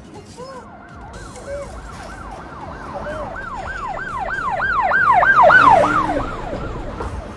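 A siren sweeping rapidly up and down in pitch, about three cycles a second, swelling to its loudest past the middle and then fading.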